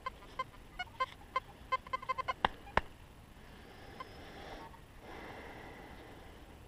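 Metal detector giving a quick run of short beeps, all at the same pitch, as it passes over a target. Two sharp knocks follow, then a few seconds of soft rustling noise.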